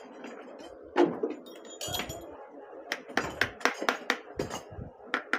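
Small hammer tapping metal parts on a motorcycle engine's clutch assembly: one loud knock about a second in, metal clinking around two seconds, then a run of about eight quick, sharp taps.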